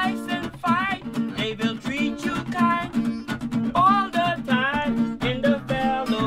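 Acoustic guitar strummed in a steady rhythm while a man sings a melody over it.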